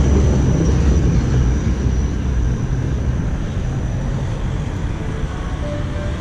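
Low rumble of passing street traffic, gradually fading.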